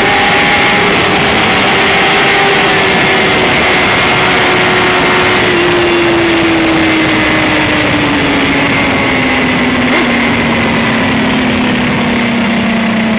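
2010 BMW S1000RR's inline-four engine winding down off the throttle as the bike slows from top speed, its pitch falling steadily, under heavy wind rush. A single short click about ten seconds in.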